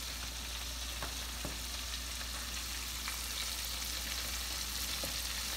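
Flour-and-cornmeal-coated flounder pieces deep-frying in a pot of hot oil: a steady sizzle, with a few light clicks of metal tongs against the pot as the pieces are moved.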